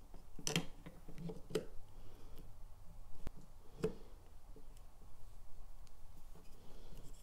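A few light clicks and knocks as phoenix wings are fitted onto a figure statue and it is handled on a countertop, about five sharp taps spread over the first four seconds.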